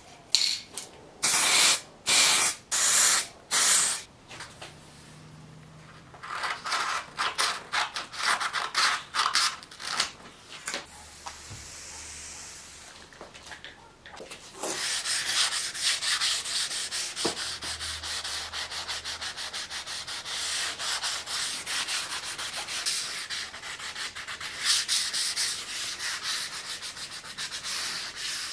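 Hand sanding strokes on a metal bayonet scabbard: a few separate strokes at first, then fast, continuous back-and-forth rubbing. A short hiss comes near the middle.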